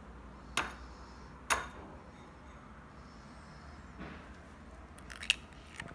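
Eggs being cracked on the rim of a ceramic bowl: two sharp taps a second apart, then a quick cluster of small clicks near the end.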